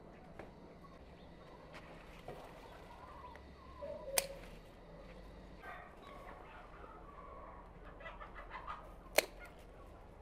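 Faint clucking of chickens and other bird calls over quiet background noise, with two sharp clicks about four and nine seconds in.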